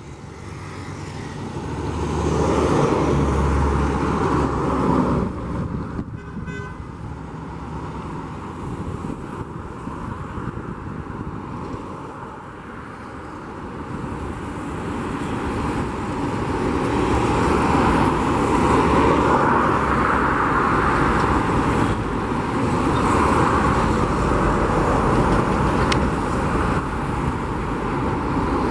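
Road traffic passing in waves of tyre and engine noise, with a short car horn toot about six seconds in.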